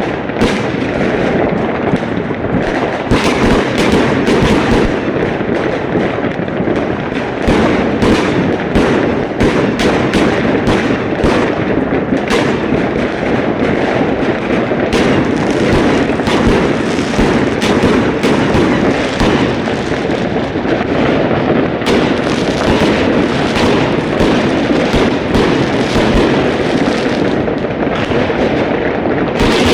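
Fireworks going off in a dense, unbroken barrage: many bangs and firecracker crackles overlapping so closely that they never stop.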